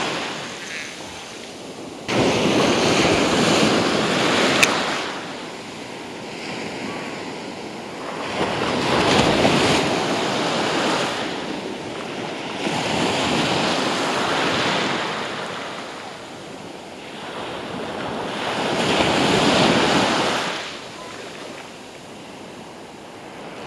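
Small surf breaking and washing up a sandy beach, swelling and fading in four surges, one every five to six seconds.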